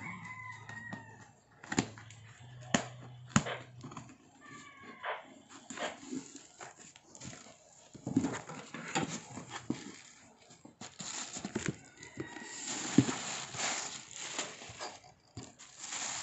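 Plastic and paper packaging and a cardboard box being handled and torn open: a few sharp knocks in the first few seconds, then steady crinkling and rustling that is loudest near the end.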